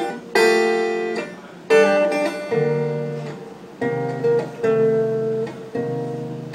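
Acoustic guitar strumming chords, each chord struck and left to ring before the next, without singing.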